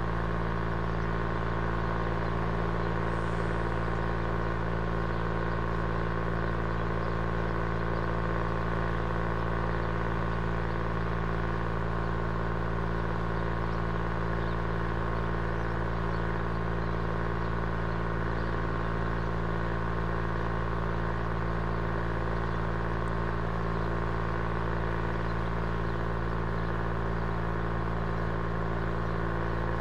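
Steady mechanical hum from a running machine, made of several fixed tones that hold unchanged throughout.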